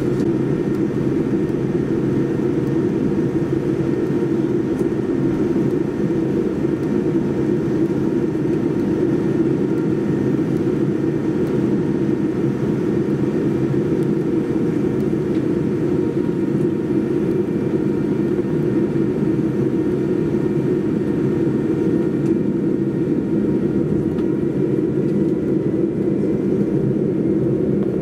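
Steady low hum of a Boeing 787-9 taxiing, heard inside the passenger cabin: engine and airflow noise at taxi power, with no change in pitch or level.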